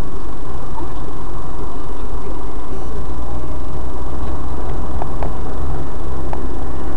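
A car driving through city traffic, heard from inside the cabin through a dashcam's built-in microphone: a steady, loud rumble of engine and tyres on the road, with a few faint ticks about five and six seconds in.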